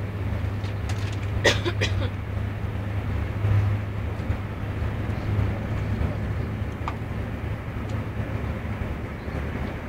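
Steady rumble of a moving train heard from inside the passenger cabin, with a low hum underneath. A short cluster of sharp clicks comes about a second and a half in, and a faint single click near the end.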